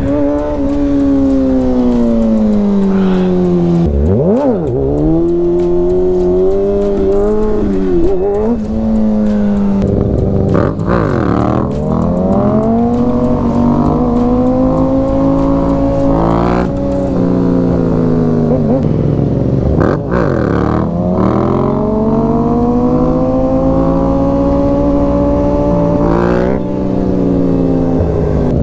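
Sport-bike engines revving up and easing off, pitch climbing through the revs and dropping back again and again. A second motorcycle rides close alongside, its engine note swooping quickly up and down several times as it draws near and away.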